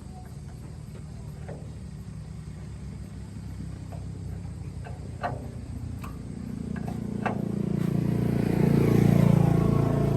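A small truck's engine running, growing louder from about six seconds in to a peak near the end, then easing slightly as it passes close. A few short sharp clicks sound along the way.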